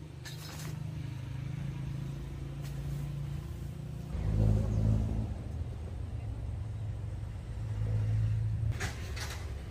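A motor engine running, its low hum swelling louder about four seconds in and again near eight seconds, with short rustling noises near the start and near the end.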